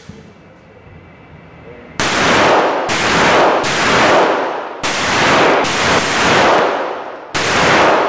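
Pistol fire in an indoor range: seven shots starting about two seconds in, roughly one a second at uneven spacing. Each shot has a long echoing tail that runs into the next.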